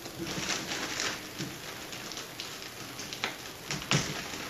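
Clear plastic packaging bags crinkling and rustling as a bagged circuit board and smaller parts bags are handled and unwrapped, with two sharper clicks near the end.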